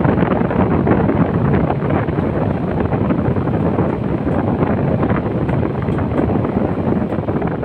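Vintage National air conditioner running: a steady rush of air from its fan.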